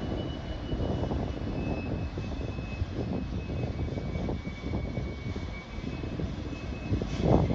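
New York City subway train running in the tunnel: a steady low rumble with irregular wheel clatter and a louder clack near the end.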